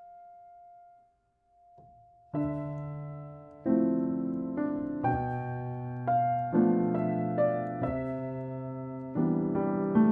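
Background piano music: a held note fades out, a brief pause, then slow piano chords strike and ring from a couple of seconds in.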